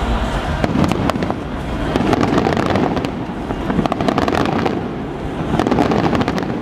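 Aerial fireworks shells bursting in rapid succession, with dense crackling made of many quick overlapping pops.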